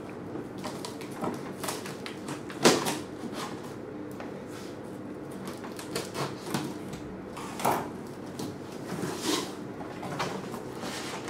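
Packing tape on a cardboard box being slit with a cutter, with scattered scrapes and rustles, the loudest about 3 and 8 seconds in. Near the end the cardboard flaps are pulled open.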